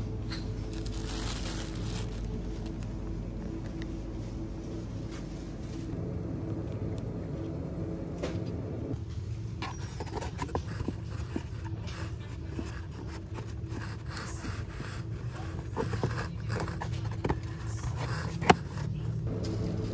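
A steady low hum, with scattered clicks and rustles of packaging being handled, and one sharp click near the end.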